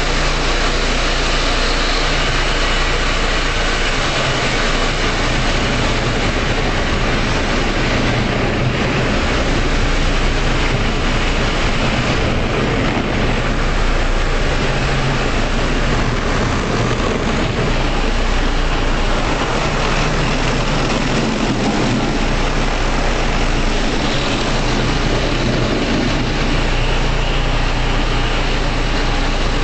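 Jelcz 120M city bus's diesel engine running steadily at low speed inside a drive-through bus wash, under a constant rushing noise from the wash's water and machinery.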